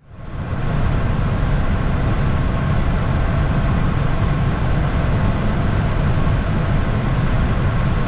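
Steady rush of airflow and engine noise in an Airbus airliner's cockpit on final approach. It fades in over the first half second, then holds even.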